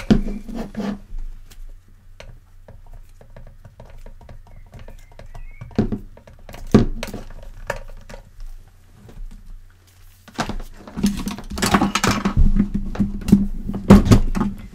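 A rubber-sheathed power cable being handled and pushed into place: rustling and scraping of the cord with scattered clicks and knocks, two sharper knocks around six and seven seconds in and a busy spell of rustling and knocking for the last few seconds.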